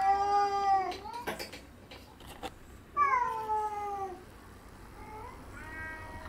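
Cat yowling in a territorial standoff between a feral orange tabby and house cats through a glass door: two long, slowly falling calls, the first at the start and the second about three seconds in, then a shorter call near the end. A few soft knocks come between the first two calls.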